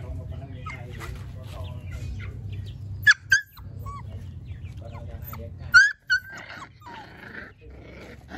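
Dog barking: two pairs of short, loud barks, the first about three seconds in and the second about six seconds in.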